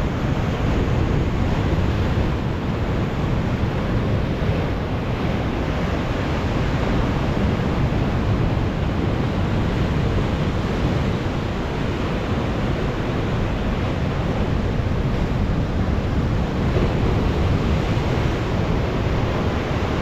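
Storm surf breaking and washing over the shore in a steady, loud rush, with wind buffeting the microphone.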